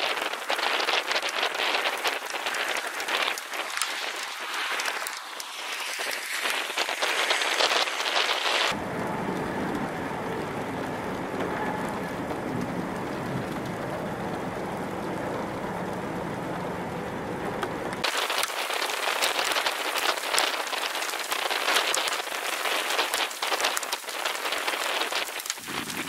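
Rain falling in a thunderstorm, a dense hiss of many small drop ticks. For about nine seconds in the middle it gives way to a deeper, steadier rumbling noise, then the rain hiss returns.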